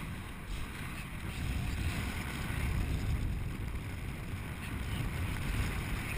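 Wind rushing over the microphone of a harness-mounted camera during paraglider flight: a steady low rumble that grows slightly louder in the middle.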